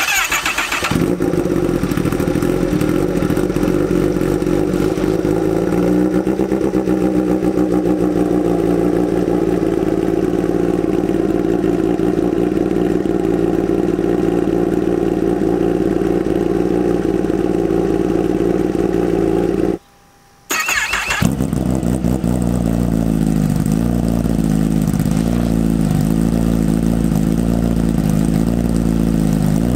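Kawasaki ZX-10R inline-four sport-bike engine running steadily through an aftermarket exhaust. A brief break just after twenty seconds is followed by a different, more wavering engine note, another bike and exhaust.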